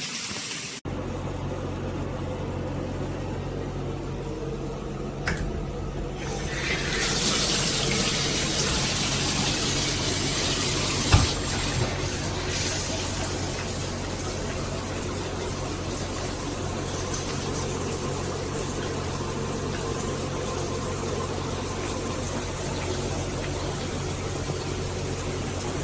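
Water spraying from a handheld filtered shower head, running steadily. It starts abruptly about a second in, grows louder and hissier about six and a half seconds in, and has a couple of small knocks along the way.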